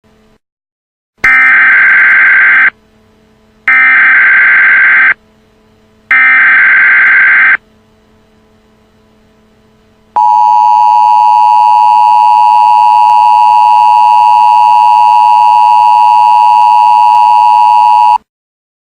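Emergency Alert System header: three loud bursts of screeching SAME data tones, each about a second and a half long, then the two-tone EAS attention signal held steady for about eight seconds before cutting off abruptly. A faint hum and hiss of added static sits underneath between the bursts.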